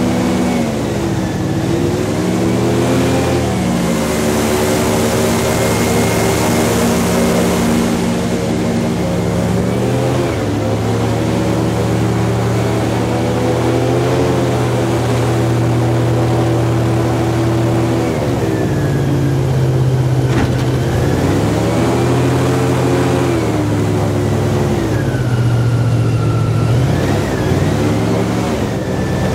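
Airboat engine and propeller running loud and steady, its pitch dipping and climbing back up about four times.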